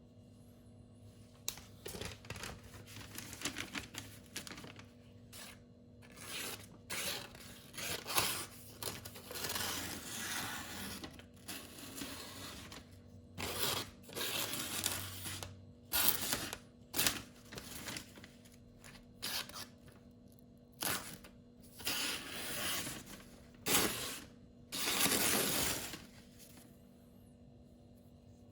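Spyderco Tenacious knife's 8Cr13MoV steel blade drawn across a silicon carbide whetstone in irregular gritty scraping strokes, about fifteen of them, some short and some a second or more long.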